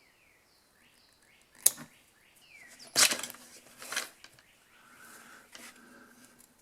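Wire cutters snipping a space heater's power cord: one sharp click, then two louder cuts about a second apart. Small birds chirp in the background.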